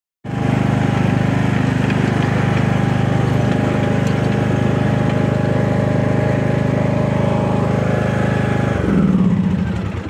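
Riding lawn mower engine running steadily, then shut off near the end, its pitch dropping as it winds down.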